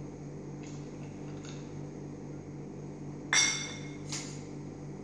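A stainless-steel bowl is set down with a sharp, ringing metallic clink about three seconds in, followed by a lighter clink of a steel spoon, over a steady low hum.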